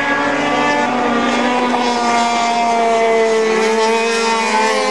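Racing snowmobiles' two-stroke engines running hard at high revs as the sleds race through a turn. There are several engine tones at once, with pitches that drift slowly up and down.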